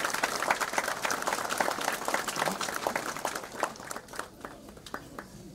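Audience applauding, the clapping thinning out to a few scattered claps about four seconds in.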